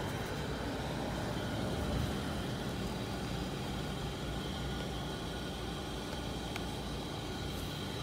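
Steady outdoor background rumble of distant road traffic, with a faint high steady tone over it.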